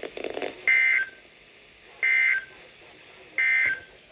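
Three bursts of EAS SAME header data tones, a rapid two-pitch digital warble about 1.4 s apart. This is the coded header that opens a new emergency alert, here a tornado warning.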